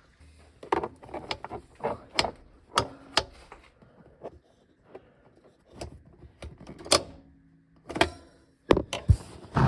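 Repeated clicks and knocks from a 2016 Ford Explorer's second-row seat latch and release lever being worked by hand, with the loudest clunks near the end as the stuck latch lets go.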